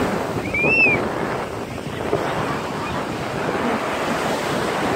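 Ocean surf breaking on a beach, with wind buffeting the microphone. About half a second in, a brief high chirp rises and falls once.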